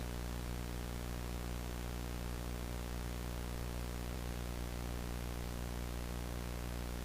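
Steady low electrical hum with an even static hiss over it, unchanging throughout: a mains-type buzz on the broadcast's audio.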